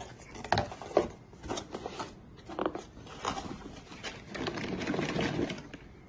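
A series of light knocks and clatters, about one a second, then a couple of seconds of continuous scraping and rustling, as of objects being handled and set down.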